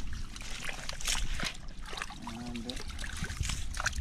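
Shallow seawater splashing and trickling, with a run of small sharp splashes and ticks over a steady low rumble. A brief voice sounds about two and a half seconds in.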